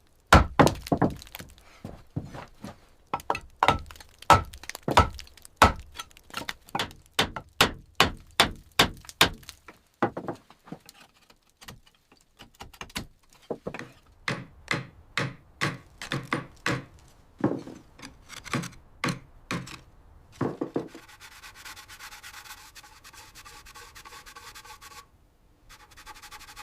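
Hand tools striking wood in wood carving: a run of sharp knocks, about two a second at first, then sparser with a pause partway through. Near the end the knocks give way to a steady pitched hum that breaks off briefly once.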